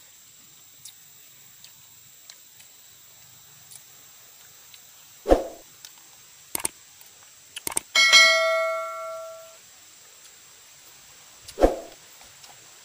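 A metal spoon strikes a small steel bowl about eight seconds in, and the bowl rings for about a second and a half. Two dull knocks, one before and one near the end, come from dishes and a plastic food box being handled.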